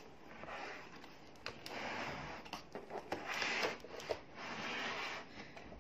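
Lego plastic being handled on a table: soft scraping patches and a few light clicks as the model is turned by hand.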